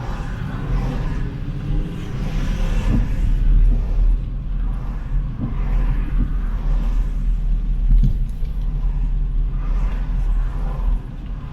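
Street traffic: cars passing one after another over a constant low rumble, their tyre noise swelling and fading several times.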